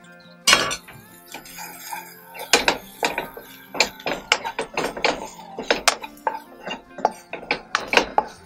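Wooden spatula scraping and knocking against a nonstick wok while stir-frying shredded ginger and spring onion in oil, a string of irregular knocks with a loud one about half a second in. Faint background music underneath.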